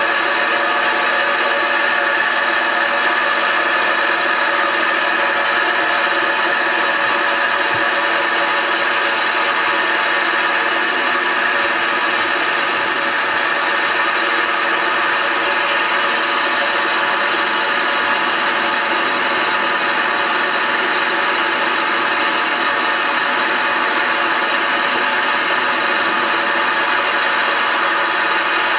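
Smart & Brown Model L bench lathe running steadily, its motor and drive giving a constant whine.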